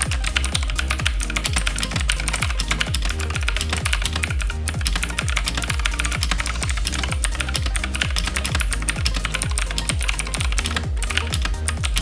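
NKEY R1S mechanical keyboard with Blue switches being typed on continuously: a fast, even stream of clicky keystrokes. Background music with a steady bass runs underneath.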